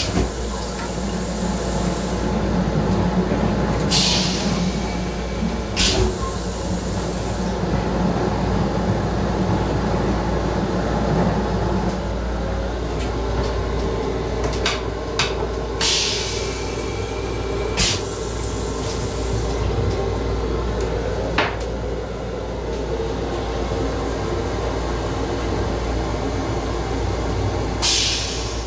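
Steady rumble of a Metro-North M7 electric railcar running, heard from inside its small restroom, with sharp clacks and rattles every few seconds.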